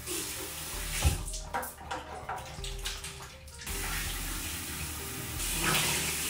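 Water running from a bathroom sink tap while hands splash and scoop water at the basin for a face wash, with a sharp knock about a second in. The splashing comes in broken spurts, then gives way to a steady stream of running water that grows louder near the end.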